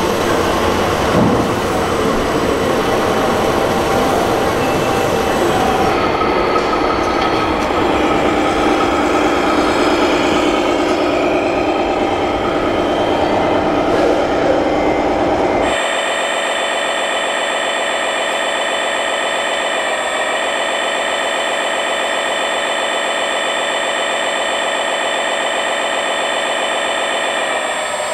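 Electric motors and gearing of 1/14-scale RC construction models whining and grinding. About 16 seconds in, the sound switches abruptly to a steadier, higher whine made of several held tones.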